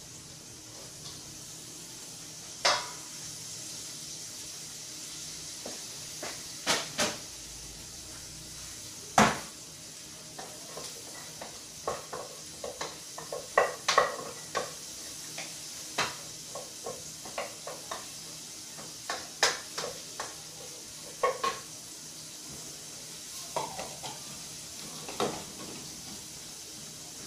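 Food sizzling steadily in a frying pan, under scattered clicks and knocks of metal tongs and a wooden spoon against stainless steel pans and a pot as the food is turned and stirred.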